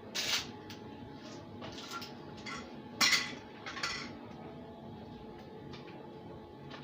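Metal parts and tools clinking and clanking as they are handled on a workbench: a sharp clank at the start, a few lighter knocks, and the loudest clank about three seconds in, followed by a short rattle.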